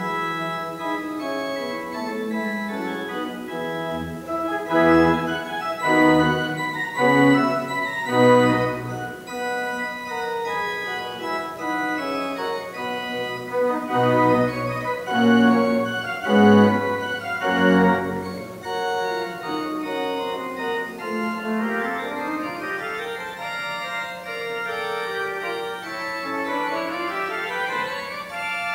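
Church pipe organ playing sustained chords over a moving bass line, then rising and falling runs of notes in the last third.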